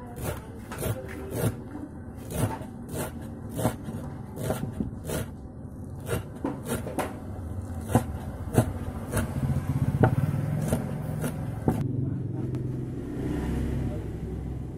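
Kitchen knife chopping spring onion greens on a wooden board: sharp knocks about two a second that stop about twelve seconds in. A low rumble comes in during the second half and runs on to the end.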